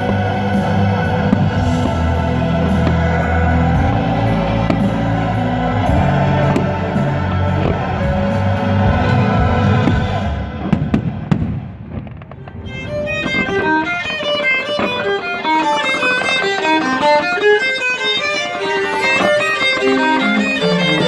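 Music played over a fireworks display. A loud piece with a heavy bass fades out about eleven seconds in, and a second or so later a new piece of quick plucked and bowed string notes begins.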